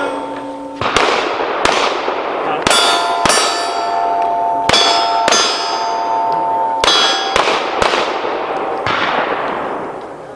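A string of pistol shots, about ten in all, each followed by the ring of a steel plate target being hit. The clangs hang on and overlap, then die away near the end.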